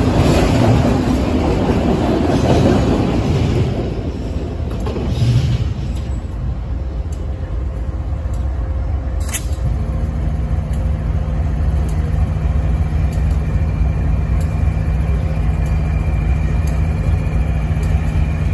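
Freight train autorack cars rolling past on steel wheels, the rumble fading away after about four seconds. From about ten seconds in, a Canadian National diesel locomotive's engine runs as a steady low hum.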